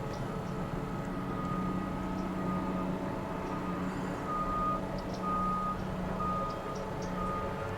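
Reversing alarm of a heavy construction vehicle beeping about once a second, over the steady low drone of an engine.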